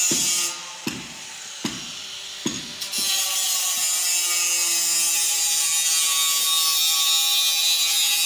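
Regular knocks, about one every 0.8 s, then from about three seconds in an electric power tool runs steadily on the steel tube with a high-pitched whir.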